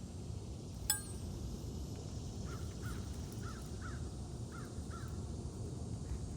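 A bird calling: six short calls in three pairs, over a steady low background rumble. About a second in there is a single sharp tap with a brief ring, the loudest moment.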